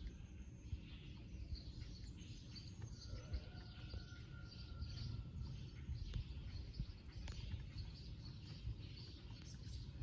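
Small birds chirping over a steady low background rumble.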